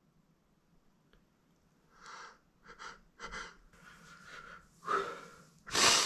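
A man's nose tickled with feathers: after a quiet start, a run of short sniffs and gasping in-breaths builds up, ending in a loud sneeze near the end.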